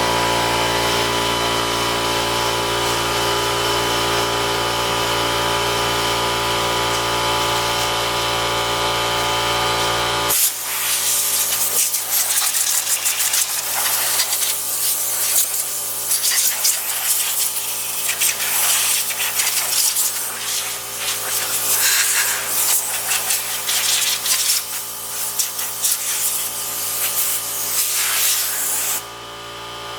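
Shop vacuum running steadily with a whining motor. About ten seconds in its sound turns rougher and uneven as the nozzle is worked over surfaces.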